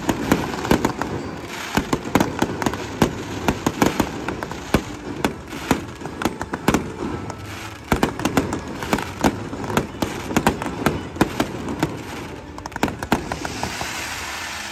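Aerial fireworks bursting in rapid succession: a dense run of sharp bangs and crackles, thinning briefly twice, with a hissing crackle near the end.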